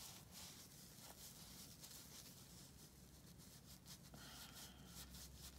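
Faint rubbing and scrubbing of a tissue on bare forearm skin, wiping off swatches of matte liquid lipstick that take some work to get off.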